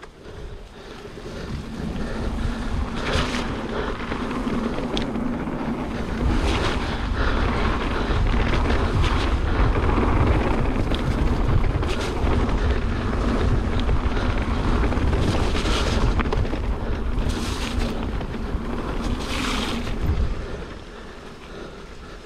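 Wind buffeting the camera microphone over the rumble of mountain-bike tyres on a dirt trail, with scattered clicks and rattles from the bike. The noise builds over the first couple of seconds and eases near the end.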